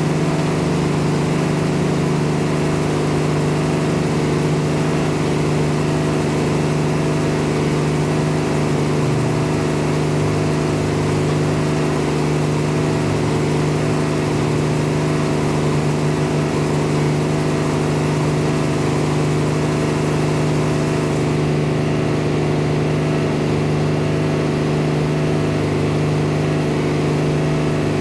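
Engine of farm machinery running steadily at constant speed, a continuous even drone; the upper hiss thins out about three-quarters of the way through.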